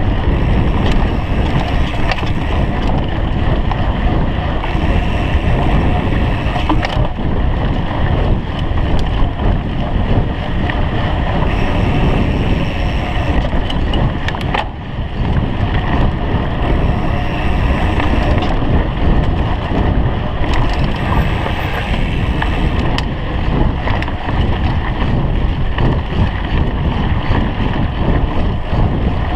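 Wind rushing over the microphone, mixed with the rumble and rattle of a mountain bike rolling fast over a dirt singletrack, its tyres on packed earth and leaves. The noise is steady, with a brief easing about halfway through.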